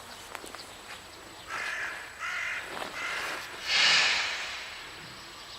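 A bird gives three harsh, caw-like calls in quick succession, then one louder rasping, hissing call.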